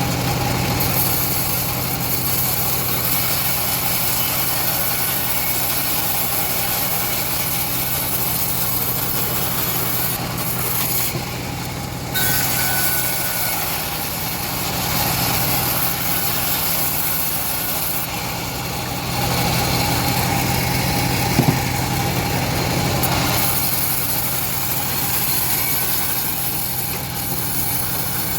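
Homemade engine-driven bandsaw mill running steadily while sawing an old teak log, with a constant engine tone under a high hiss from the blade. The hiss thins out briefly about eleven seconds in and again around eighteen seconds.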